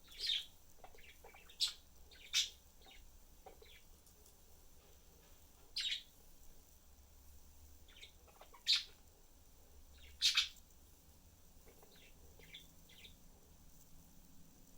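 Pet budgerigars chirping: about six loud, short, high chirps at irregular intervals, with softer chattering chirps in between.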